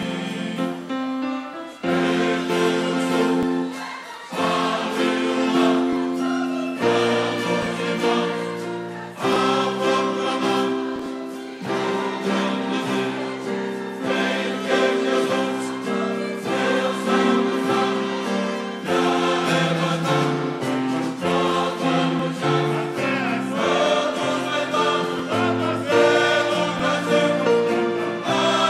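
Choir singing a gospel song in held chords, phrase after phrase with short breaks every two to three seconds.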